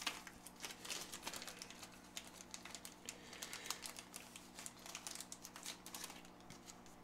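Hands rummaging through small metal parts, with many quick, irregular little clicks and rattles.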